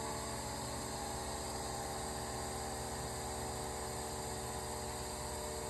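Desktop model turbofan jet engine running on as a steady hum and whine made of several tones, its fuel just shut off for the stop sound.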